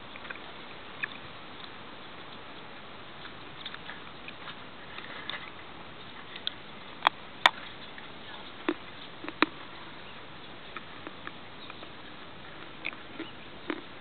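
A lump of natural Miropolye chalk being bitten and chewed: a scatter of sharp crisp crunches and cracks, the loudest a handful about halfway through.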